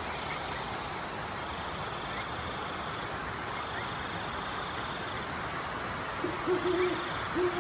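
Owl hooting: a run of short, flat, low hoots about six seconds in, over a steady background hiss.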